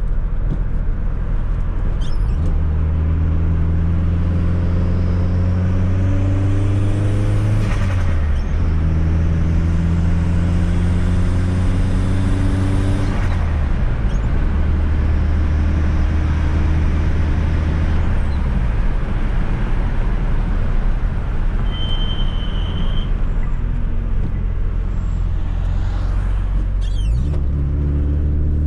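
Fiat Coupe 2.0 16V Turbo engine accelerating through the gears over steady road noise. The revs climb slowly, then drop sharply with a brief rush of noise at each gear change, about 8 and 13 seconds in. The engine holds steady, then fades under the road noise and rises again near the end.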